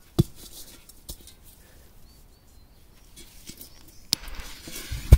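A few sharp clicks while the fuse of a large Achtung firecracker is lit. About four seconds in, a hiss starts as the fuse catches, and a couple of heavy thumps come near the end.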